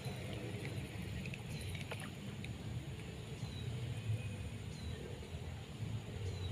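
Outdoor ambience by a pond: a steady, fluctuating low rumble with a short high call that drops in pitch, repeating about every second and a half, over a thin steady high-pitched hum.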